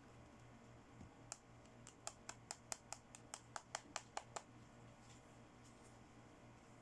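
About a dozen short, sharp clicks in quick succession, about five a second, from small plastic toy accessories being handled and clicked during unboxing.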